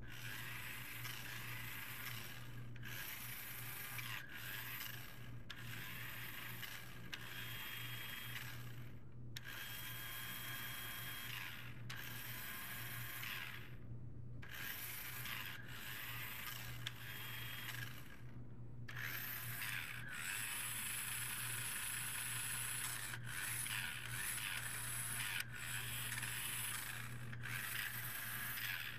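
Toy monster truck's small electric drive motors and gearbox whirring in bursts of one to several seconds, stopping and starting again many times as keyboard keys switch them on and off.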